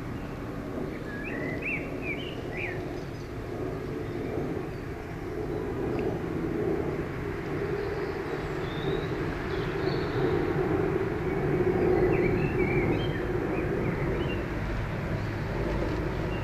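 Low, steady rumble of a distant London Underground train, swelling gradually to its loudest about twelve seconds in. Short high chirps come twice, near the start and again around the loudest point.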